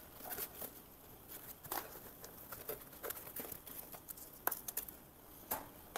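Faint rustling and scraping of foam packaging and a cardboard box as a print head is lifted out by gloved hands, with scattered light clicks and a couple of sharper knocks in the second half.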